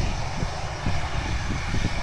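Twin-engine jet airliner's engines running on the runway, a steady rumble and hiss, with wind buffeting the microphone.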